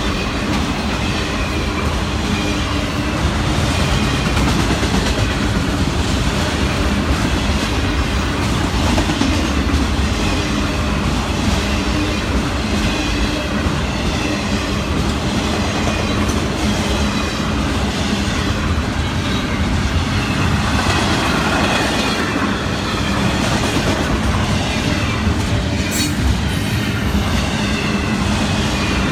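Florida East Coast Railway freight cars (autoracks, then double-stack container well cars) rolling past close by: a steady rumble of steel wheels on rail, with wheels clacking over rail joints and a sharper clank near the end.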